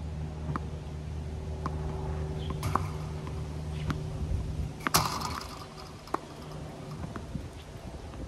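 Tennis balls popping off a racket and bouncing on a hard court, a sharp pop about once a second, the loudest a little before five seconds in. A steady low hum runs underneath and fades out around the middle.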